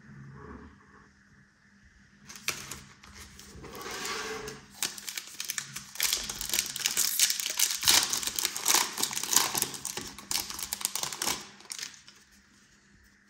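Foil wrapper of a Panini Contenders football card pack being torn open and crinkled by hand: a dense run of crackling that starts about two seconds in and dies away near the end.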